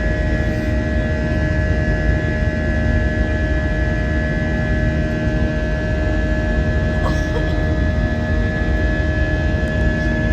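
Steady, unchanging mechanical drone: a loud low rumble with a few constant whining tones on top, like a vehicle or aircraft engine heard from inside.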